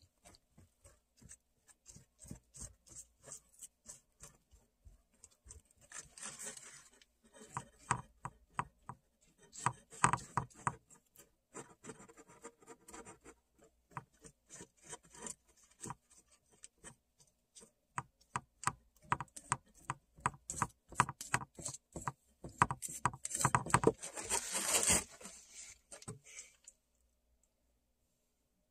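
Paintbrush dabbing and scrubbing paint onto crumpled aluminium foil: a run of rapid, irregular taps and crinkles, in denser flurries about six, ten and twenty-four seconds in, stopping a couple of seconds before the end.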